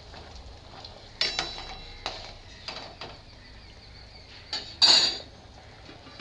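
A metal utensil clinks and scrapes against a kadhai as chopped cabbage is added to the vegetables and stirred, in a few separate knocks. There is a louder, ringing metallic clatter about five seconds in.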